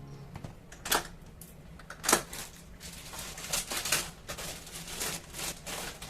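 A run of irregular light clicks and taps in a small room, the two sharpest about one and two seconds in.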